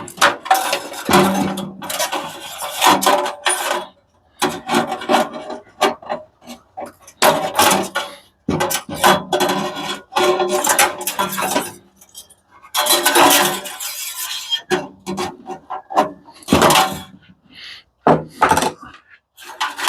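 Metal parts of a commercial coffee machine being scraped, rubbed and clattered while it is being dismantled, in irregular bursts of a second or so with short pauses between.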